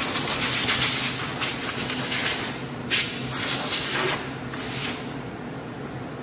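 Compressed-air blow gun hissing in bursts as a freshly turned part is blown clean: one long blast of about two and a half seconds, then three shorter ones. A steady low machine hum runs underneath.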